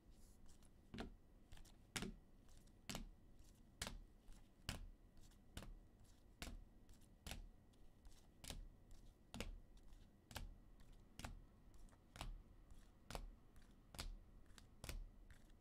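Rigid plastic top loaders holding trading cards clicking against one another as the cards are flipped one at a time through the stack, a faint click about once a second.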